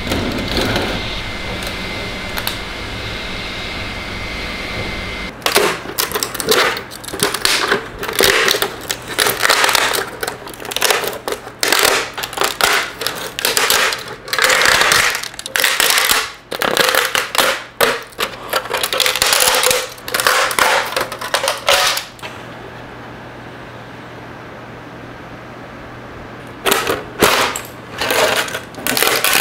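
3D-printed plastic parts and support material cracking and snapping as they are pulled and broken off the build plate, in a long run of rapid, irregular cracks. Before it there is a steady hum with a thin high tone, and after it a quieter hum, with a few more snaps near the end.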